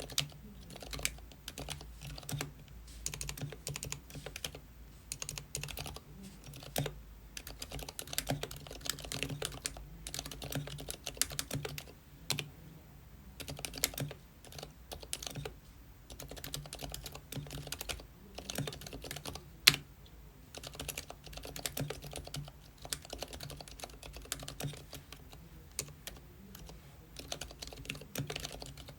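Typing on a Womier K66 mechanical keyboard fitted with Gateron Silent Brown silent tactile switches, lubed with a Krytox 106 and 205g0 mix and filmed. Keystrokes come in quick runs broken by short pauses, with one sharper, louder keystroke about twenty seconds in.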